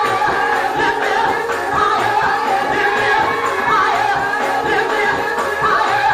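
Church praise music: singing voices holding long, wavering notes over a steady instrumental accompaniment.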